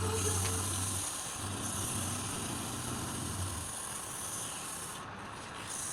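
Wood lathe running with a steady rubbing hiss of abrasive or tool against the spinning wood, typical of sanding a turned piece. A low motor hum comes and goes under it, dropping out about a second in and again after about three and a half seconds.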